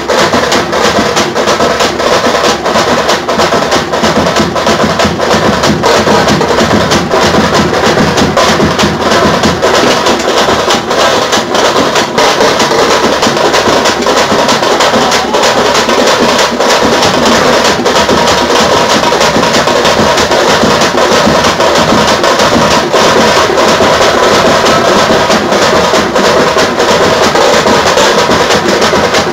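A tamte drum band playing: many tamte frame drums struck rapidly with sticks together with large bass drums, a loud, dense, continuous beat.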